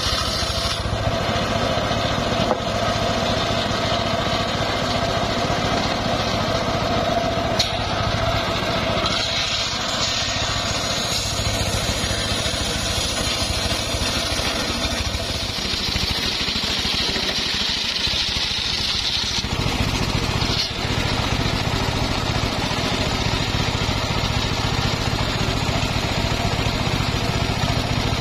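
Engine-driven homemade circular sawmill running steadily. A higher, brighter whine rises over the engine for about ten seconds in the middle, then drops back.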